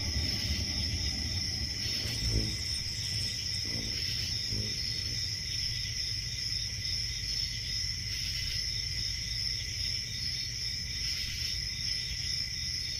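Crickets chirping steadily in a continuous high trill, over a low hum that is strongest at the start.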